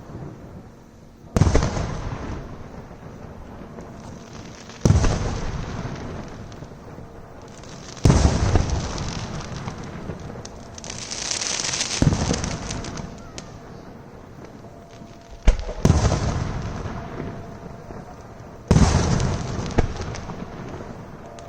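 Aerial firework shells bursting one after another, six loud booms about every three to four seconds, each followed by a long rolling echo. A stretch of crackling from the bursting stars comes near the middle.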